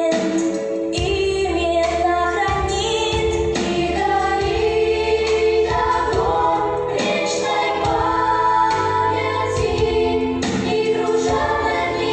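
A children's choir singing a song in unison, with instrumental backing and a steady bass line underneath.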